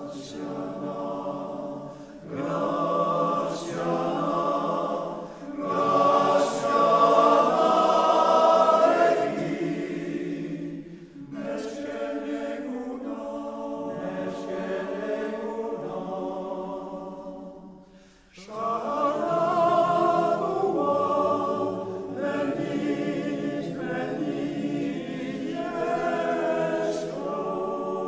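Basque male voice choir singing a cappella. The singing swells loudest about a quarter of the way in, drops away to a brief pause about two-thirds of the way through, then resumes at full strength.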